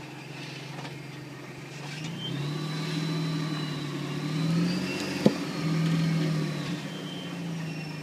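Supercharged Jeep Wrangler JKU engine revving up and down in bursts while crawling over rocks, with a high supercharger whine rising and falling with the revs. A single sharp knock about five seconds in.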